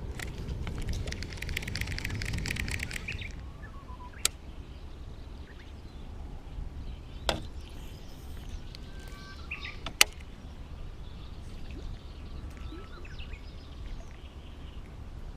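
A dense run of rapid clicking for about three seconds, then three single sharp clicks a few seconds apart, with birds calling faintly.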